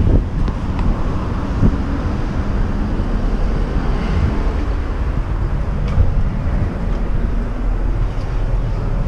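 Steady low rumbling outdoor noise: wind buffeting the body-worn camera's microphone, mixed with street traffic, with a few faint clicks.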